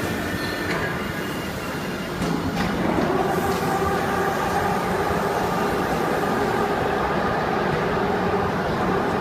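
Industrial machinery running steadily with a mechanical hum that gets louder about two seconds in and then holds.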